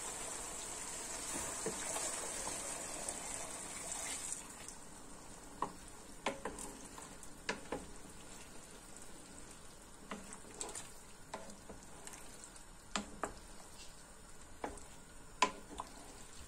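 Hot water poured from a kettle into a pot of okra and tomato sauce, a steady hissing pour for about the first four seconds. Then a wooden spoon stirring the stew, with sharp knocks against the granite-coated pot, about a dozen scattered taps.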